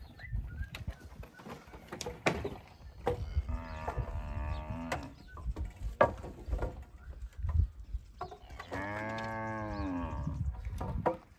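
A cow mooing twice, two long calls, the second rising then falling in pitch. Sharp knocks sound in between, the loudest about halfway through.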